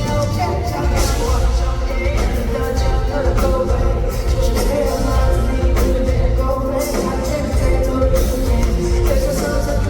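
Loud amplified music over a concert PA with heavy, steady bass and a singing voice in the mix.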